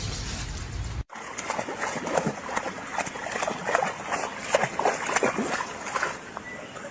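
A dog splashing and sloshing about in water, a quick, irregular run of splashes.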